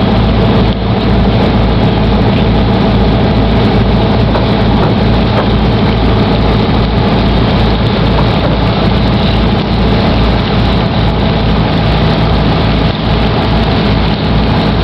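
Charter fishing boat's engine running steadily under way: a loud, steady low drone with a fast throbbing underneath.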